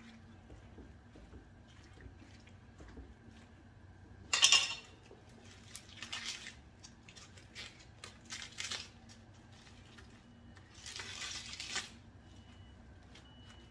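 Washed collard greens being handled and put into a stainless steel pot of water: a loud clatter about four seconds in, then several short bursts of wet leaves rustling and dripping, the longest near the end.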